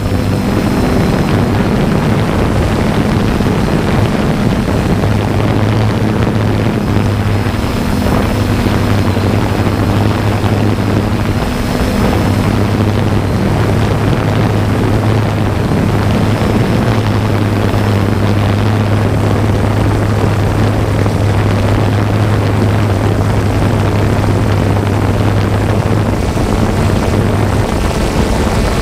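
Drone's motors and propellers running in flight, a steady hum with a lower tone that drops out and returns several times, over loud noise.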